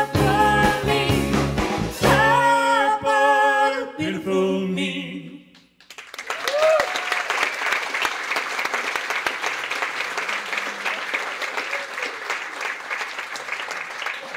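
A woman singing with a live band of piano and drums ends a song on a held final note, the music dying away about five seconds in. Then the audience applauds.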